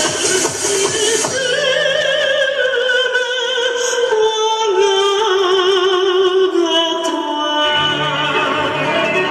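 Music with a singer holding long notes with strong vibrato, the melody sliding slowly downward; the low accompaniment drops out after about a second and comes back near the end.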